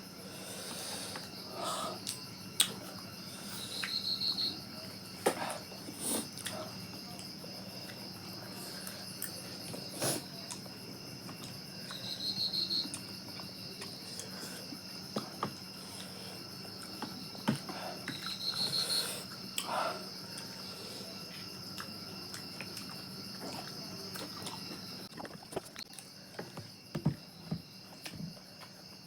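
Steady high-pitched chirring of insects, with a short louder trill three times and scattered light clicks and knocks.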